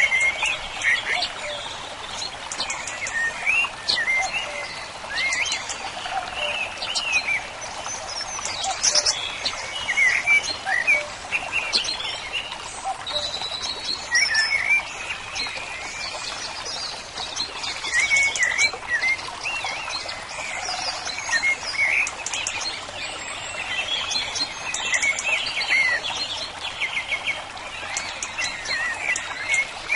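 Songbirds chirping and singing, a dense run of short overlapping calls and quick pitch glides.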